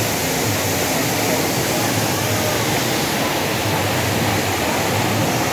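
Waterfall pouring steadily: a loud, even rush of falling water.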